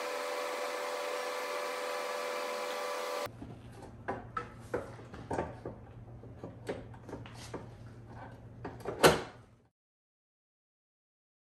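A steady motor-like whir for about three seconds. Then comes a string of knocks and clicks as a motorcycle's dual seat is handled and pressed down onto its frame, the loudest a sharp thump about nine seconds in.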